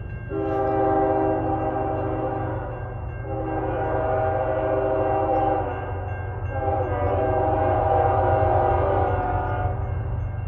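Air horn of a BNSF ES44DC diesel-electric locomotive sounding three long blasts, the last the longest, over the steady low rumble of the locomotive's diesel engine as the train passes at speed.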